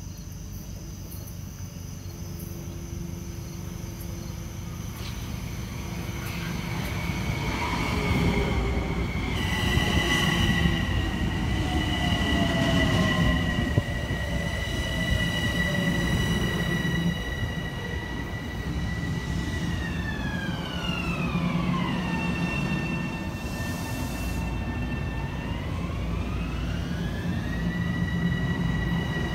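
Metro-North Bombardier M7 electric multiple-unit train approaching and pulling in alongside the platform, with a rumble that grows louder over the first several seconds. From about a third of the way in a high, steady electric whine runs over it. The whine slides down in pitch about two-thirds through, holds, then slides back up near the end.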